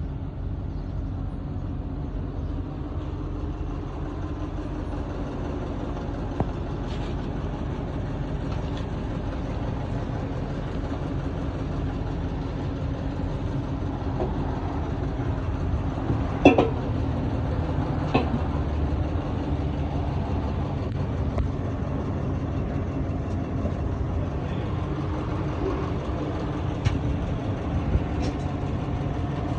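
Old Mercedes truck engine running steadily with a low rumble, with a few sharp knocks or clanks, the loudest about sixteen seconds in.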